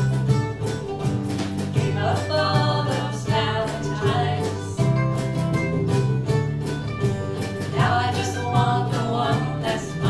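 Live acoustic band playing a country song: strummed acoustic guitar, ukuleles and mandolin, with women singing from about two seconds in and again near the end.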